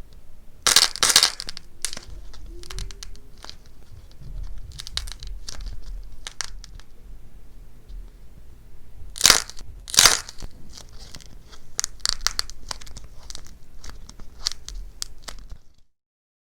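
Brittle dried cracking clay being crushed and broken apart by hand: a run of crisp crunches and crackles, loudest about a second in and twice around nine to ten seconds, cutting off just before the end.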